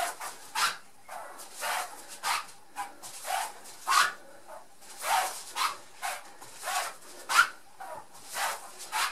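Heavy, rhythmic breathing from a person exerting themselves in repeated judo foot-sweep drills, with short breaths coming about one to two times a second.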